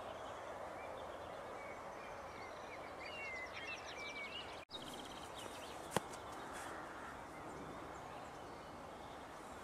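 Wild birds chirping and trilling over a steady outdoor hiss, with one sharp click about six seconds in.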